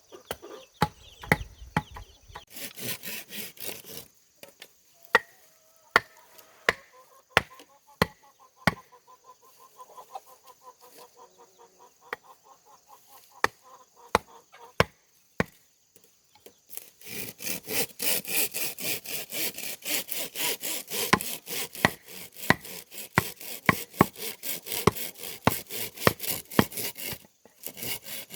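Bamboo being cut with a hand saw: a short burst of sawing strokes, then a series of single sharp knocks, then about ten seconds of fast, even sawing strokes near the end.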